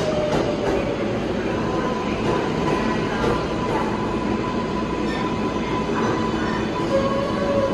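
R188 subway train running through the tunnel: a steady rumble of wheels on rail with a thin, high squeal held over it and a few clicks over rail joints in the first second.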